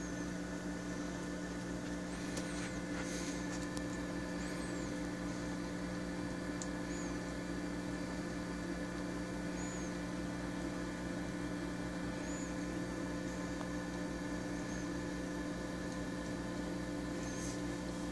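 Steady hum of a running reef aquarium's pump and equipment, with a few faint, short, high chirps now and then.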